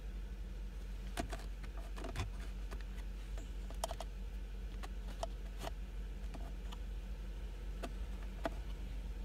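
Scattered light clicks and ticks at irregular times over a steady low hum.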